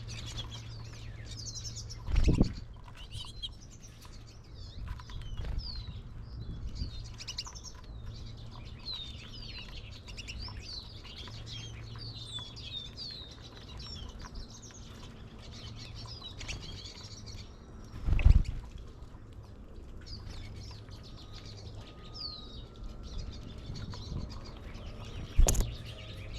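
Many small songbirds chirping and calling at a backyard bird feeder, a busy overlapping chatter of short high notes. Three loud, short low thumps break in, about 2, 18 and 25 seconds in.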